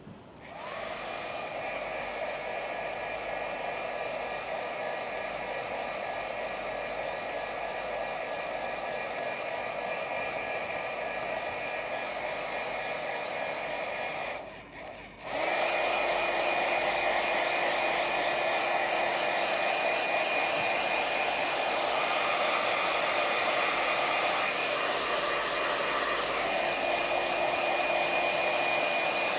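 Handheld iTeraCare terahertz wand running with a steady, hair-dryer-like fan whir. It cuts out for about a second around halfway through, then comes back a little louder.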